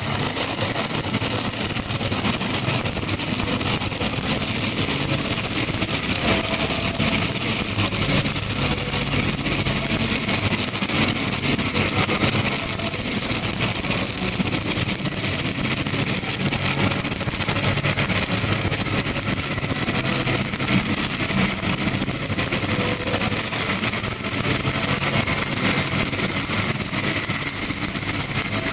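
Stick-welding arc of an 8010G cellulose-coated electrode running a downhill pass on steel pipe: a steady, crackling hiss throughout, with a faint steady low hum underneath.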